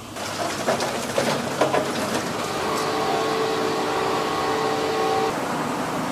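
A hand pallet jack hauling a metal drying rack: a run of metal clanks and rattles, then a steady whine for a couple of seconds that stops suddenly, over a steady hiss of factory ventilation.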